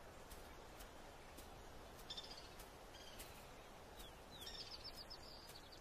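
Near silence: faint outdoor ambience with a few short, high small-bird chirps about two seconds in, and a quicker run of chirps a little after the middle.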